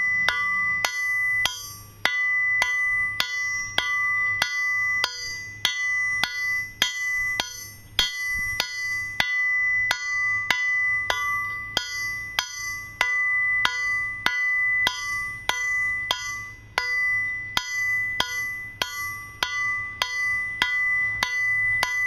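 Hand hammer striking hot 1/4 inch square steel bar stock on an anvil at about two blows a second, each blow followed by the anvil's clear ring: drawing the bar's end out to a point.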